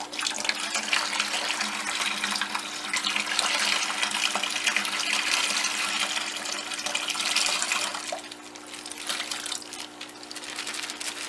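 Water pouring out of a plastic fish bag through a small mesh aquarium net into a bucket of water, a steady splashing trickle that eases off about eight seconds in.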